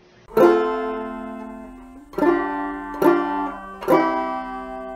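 Outro music on a plucked string instrument: four ringing chords, the first just after the start and the others about two, three and four seconds in, each fading slowly.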